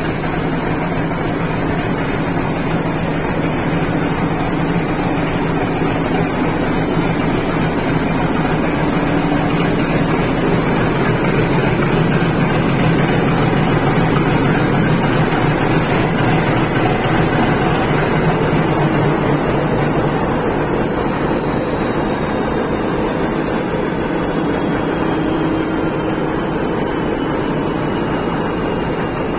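YDM4 diesel locomotive engine running steadily, with a thin high whine on top that slowly falls in pitch about two-thirds of the way through.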